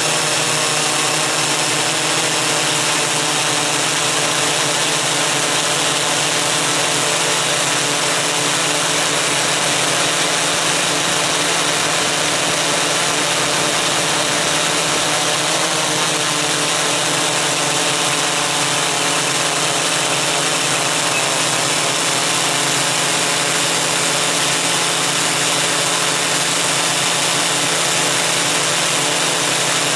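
Onboard sound of a MikroKopter Koax-Quadro X8 multicopter's eight electric motors and propellers, a steady hum of several tones over a rushing noise, the pitches shifting slightly as the copter holds and moves.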